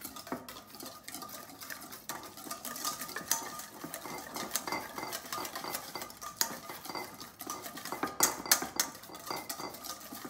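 Wire whisk beating against a stainless steel mixing bowl: a quick, irregular run of light metallic clicks and scrapes, with a few harder strokes about eight seconds in, as a mustard vinaigrette is whisked to emulsify olive oil into it.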